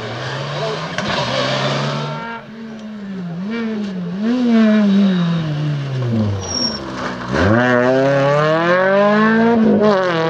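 Rally car engine slowing for a corner, its revs falling with short blips on the downshifts to a low point about six seconds in. It then accelerates hard and loud, revs climbing steeply, with an upshift near the end.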